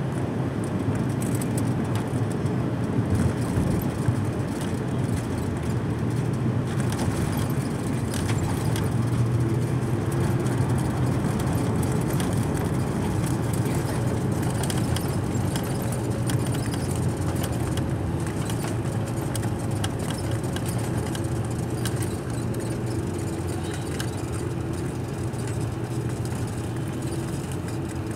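Cabin noise of an Airbus A330-300 on its landing roll: a steady rumble of engines, airflow and wheels on the runway, with clicks and rattles of the cabin in the first several seconds, then an even rumble as the aircraft slows with its ground spoilers raised.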